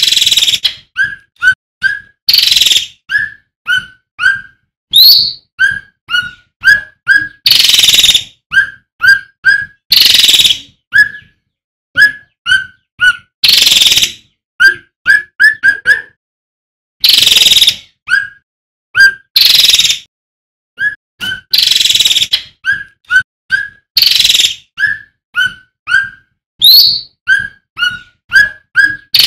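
Male cucak ranting (cucak rante) songbird singing loudly: quick runs of short clear whistled notes, several a second, broken every couple of seconds by louder harsh, rasping bursts.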